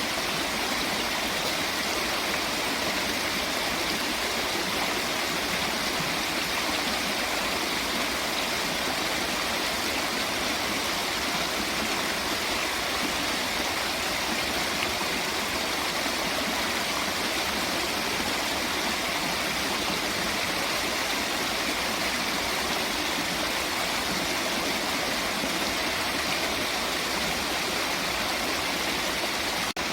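Running water: a steady, unbroken rush like a stream or small waterfall.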